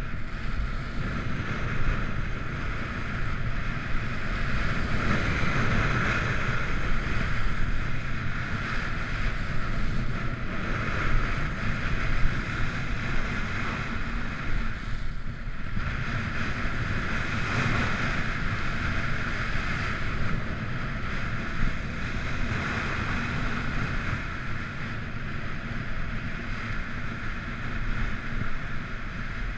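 Skis sliding fast over groomed corduroy snow: a steady hiss of the bases and edges running across the ridges, with wind rumbling on the camera's microphone. The hiss eases briefly about halfway through.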